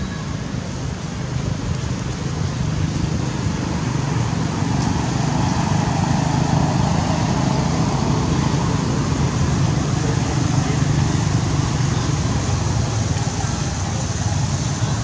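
Steady low rumble of road traffic, growing louder a few seconds in and then holding.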